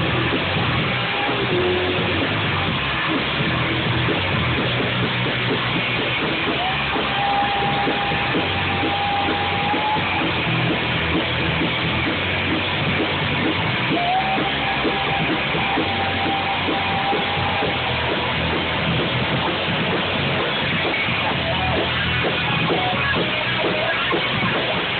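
Live rock band playing: electric guitar, bass guitar and drum kit in a dense, steady wall of sound, with two long held high notes in the middle.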